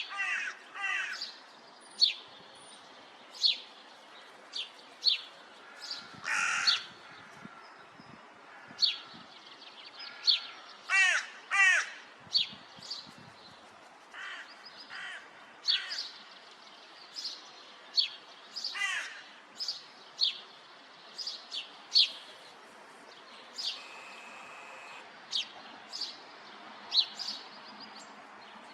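Crows cawing, with several harsh caws in quick runs, among many short, sharp, high-pitched calls.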